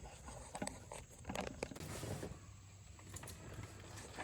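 Faint scattered clicks and rubbing as the fuel filter housing of a Bobcat skid steer is handled and wiped clean, with a brief hiss a little after two seconds in.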